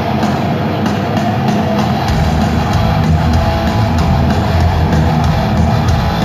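Heavy metal band playing live through a stadium sound system: distorted electric guitars over a pounding drum kit. The bass and kick drum come in much heavier about two seconds in.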